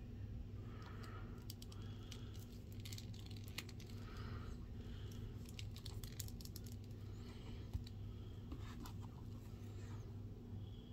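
Scattered small clicks and rustling from handling a plastic action figure and its accessories, with one sharper tap about three quarters through, over a steady low hum.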